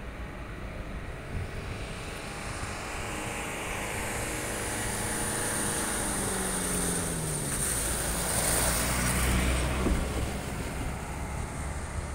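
A motor vehicle passing close by, its engine pitch falling as it goes past and the noise swelling to its loudest past the middle, over a steady low rumble.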